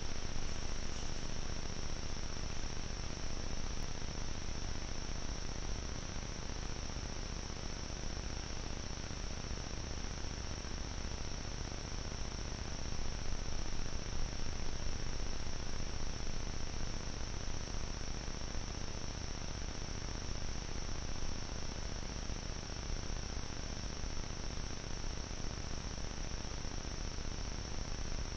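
Steady chorus of insects, a continuous high-pitched buzz, over the trail camera microphone's even hiss.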